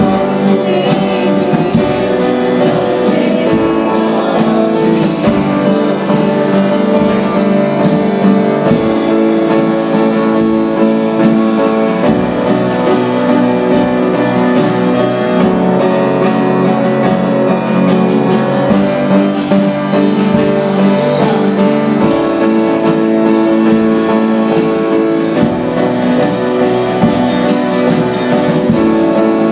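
Worship band music with guitar and drums playing steadily, with no words sung.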